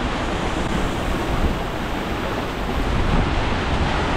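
Squall wind blowing hard and buffeting the microphone: a loud, even rushing noise with heavy low rumble.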